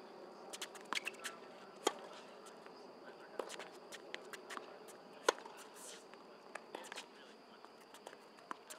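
Tennis rally: sharp racket strikes on the ball, the loudest about a second and a half to two seconds apart, with softer ticks of bounces and footwork between them, over a steady high buzz.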